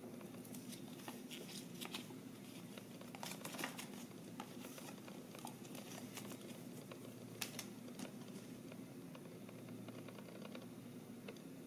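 Faint handling of a folded card and a cardboard pencil box: soft rustles and small ticks of paper and card in the hands, thickest a few seconds in, with a sharper tick about two-thirds through. A faint steady low hum lies under it.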